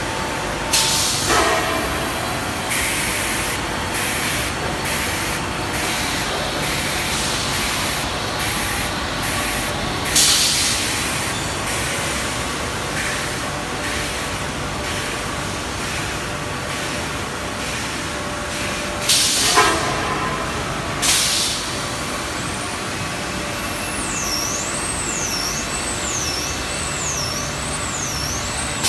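EPP shape moulding machine running with a steady factory noise, broken by short loud hissing venting blasts about a second in, around ten seconds, and twice around twenty seconds. Near the end a high warbling tone rises and falls about once a second.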